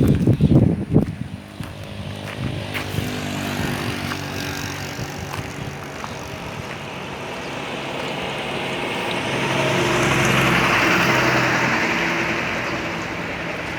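A motor vehicle passing: a steady engine note under rushing noise that swells to a peak about ten seconds in and then fades. A cluster of loud, sudden sounds comes in the first second.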